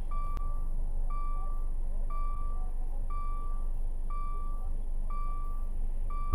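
Car warning chime, one high pitched ding repeating about once a second, over a steady low rumble.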